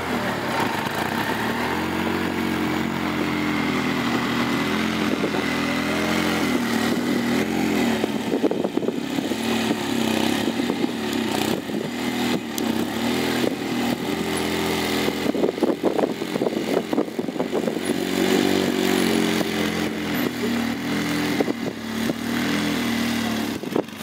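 Arctic Cat Wildcat side-by-side's engine revving up and down under load as it crawls up a steep rock ledge, with scattered knocks and crunches in the middle.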